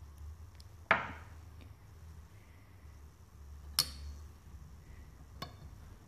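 Small neodymium magnets clicking onto the steel outer ring of a ceiling fan motor: three sharp metallic snaps, the first about a second in and the loudest with a short ring after it, over a steady low hum.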